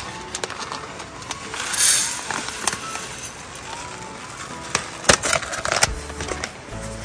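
A plastic bag of dry rice rustles, and the grains are poured into a metal rice pot with crackly patters. Soft background music plays underneath.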